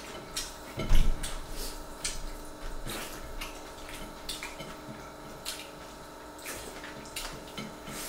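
Close-miked eating sounds: wet chewing, lip smacks and the squish of fingers working soft rice on plates, a scatter of short wet clicks. A single dull thump about a second in is the loudest sound, over a faint steady hum.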